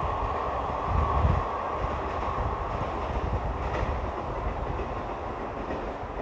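Passenger coaches of a long train rolling away over the rails: a steady rumble of wheels on track that slowly fades as the train recedes, with a low thump about a second in.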